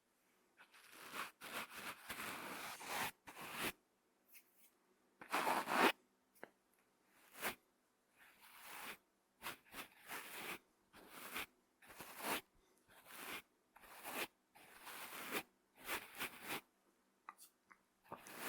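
Brush bristles stroked across a microphone, close up: a steady run of separate scratchy, rasping sweeps, about one or two a second, with short quiet gaps between them.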